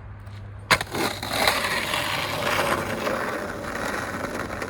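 Skateboard: a sharp clack of the board under a second in, then its wheels rolling over rough ground in a steady, gritty rumble.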